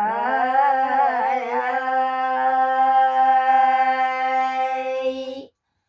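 A cow mooing: one long, steady call that cuts off near the end.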